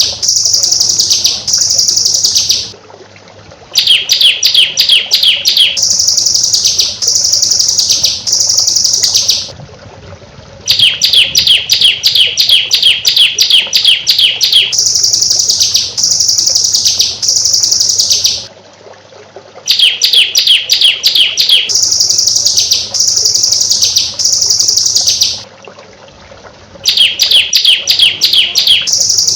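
Recorded songbird song played in a loop for training birds: a rapid ticking trill followed by several high, downward-sweeping whistles, repeated over and over. Short pauses fall about every seven to nine seconds.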